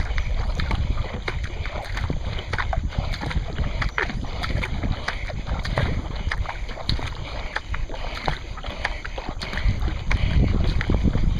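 A racing kayak paddled hard: water splashing and dripping in short, irregular bursts over wind rumble on the deck-mounted microphone. The wind rumble grows louder near the end.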